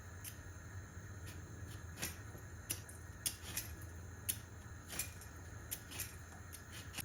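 Scattered light kitchen clicks and taps, a dozen or so at irregular intervals, from utensils and dishes being handled.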